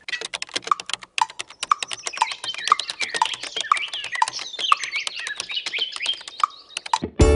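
Rapid computer keyboard typing, a dense run of key clicks, with high chirping over it. Music starts right at the end.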